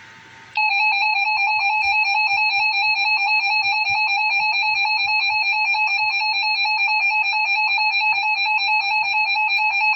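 Emergency Alert System attention signal: a loud, steady electronic alert tone with a slight fast warble, starting about half a second in and cutting off abruptly near the end, just before the spoken tornado warning.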